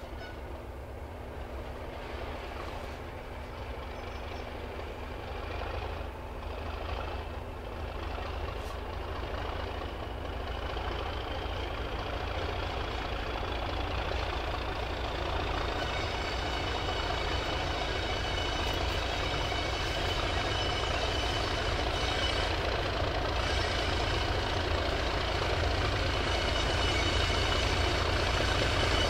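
Class 37 diesel-electric locomotive's English Electric V12 engine under power as the train approaches, growing steadily louder. A high whistle rises in pitch over the first half.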